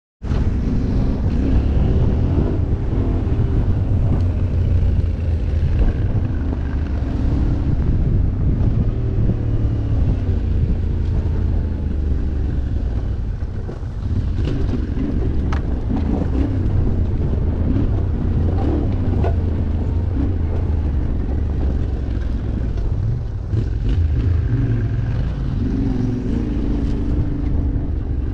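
Yamaha Ténéré 700's parallel-twin engine running under way, its pitch rising and falling as the throttle is worked, with wind buffeting the microphone.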